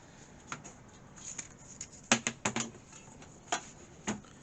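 A mains plug and its power lead being picked out of a drawer and handled: scattered plastic clicks and knocks, with a quick cluster of three about two seconds in and single knocks near the end.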